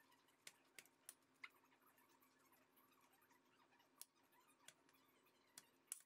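Near silence broken by a few faint, scattered clicks of a metal fork against a stainless steel pan as chicken breasts are flipped.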